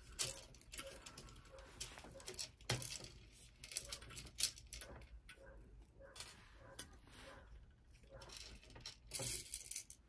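Small plastic beads clicking and rattling in plastic compartment trays as they are picked out by hand: scattered light clicks, with a brief louder rattle near the end.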